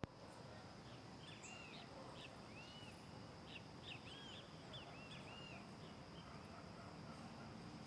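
Faint outdoor ambience with birds chirping: a quick series of short, arched chirps around the middle, over a steady faint high-pitched tone.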